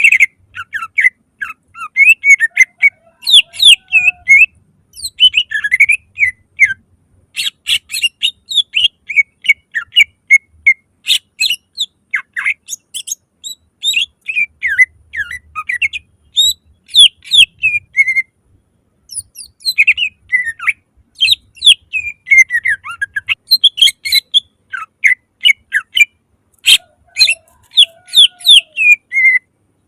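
Cucak ijo (greater green leafbird) singing loudly in fast, varied runs of chirps, sweeping whistles and sharp clipped notes, broken by a few short pauses.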